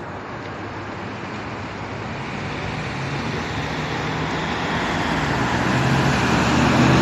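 Road traffic noise through a phone's microphone, growing steadily louder, with a vehicle engine's low drone coming up over the last couple of seconds.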